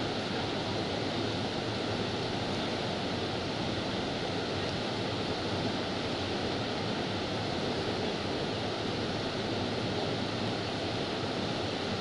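The Rhine Falls, a large river waterfall, pouring with a steady, unbroken rush of falling and churning water.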